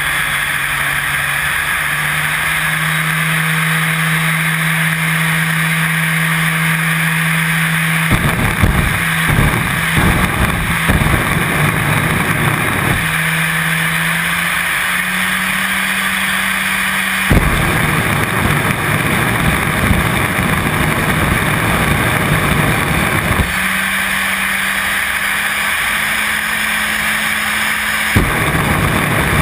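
Jet car's jet engine running: a steady hiss over a low hum that steps up in pitch twice. Three times the engine breaks into several seconds of heavy rumbling rush, as it is throttled up for a smoke show.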